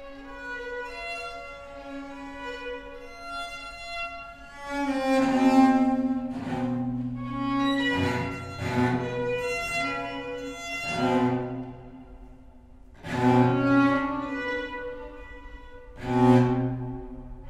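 Violin playing held notes. About five seconds in, a deeper bowed string part joins well below the violin's range, with low notes that swell and fade every few seconds.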